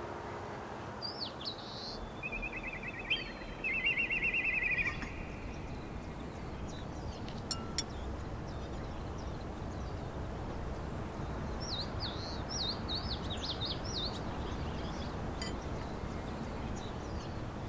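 Small birds calling outdoors over a steady background hush: a fast trill of rapidly repeated notes about two seconds in, the loudest part, and runs of short chirps at the start and again past the middle. A few light clicks sound in between.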